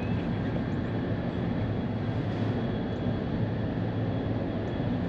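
Steady low mechanical drone, like an engine running, with a faint high steady whine above it.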